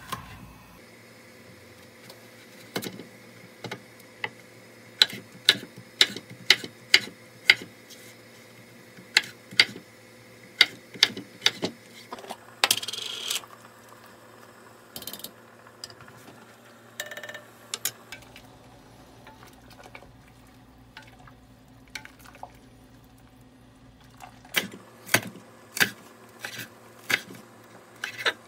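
Chef's knife chopping zucchini and green onion on a wooden cutting board: runs of sharp knocks on the board, with a brief scrape and scattered clinks in the middle stretch. A faint steady hum runs underneath.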